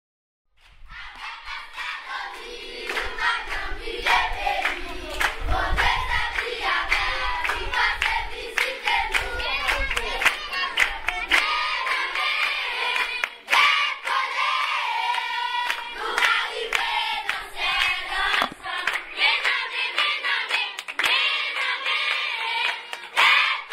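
A group of people singing together with rhythmic hand clapping, starting about half a second in after a brief silence.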